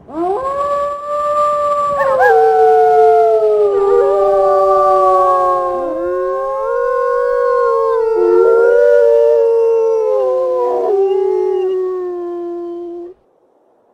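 Several wolves howling together in a pack chorus: long, overlapping howls that rise and fall in pitch, with new voices joining in. They cut off suddenly near the end.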